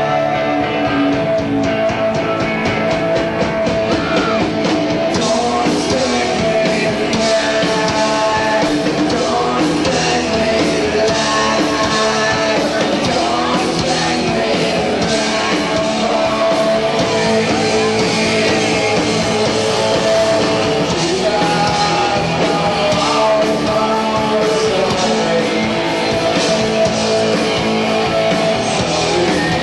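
Rock band playing a song live, guitar, bass and drums with a man singing, recorded from the audience.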